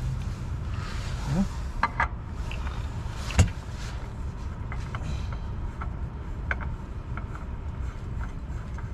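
Oil filter being fitted by hand under a car: scattered light clicks and taps of handling, with a sharper knock about three and a half seconds in, over a steady low rumble.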